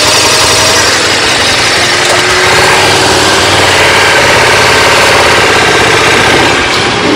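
KTM Super Duke GT's 1301 cc V-twin engine running at low revs as the motorcycle pulls away from a standstill, with its pitch rising slightly.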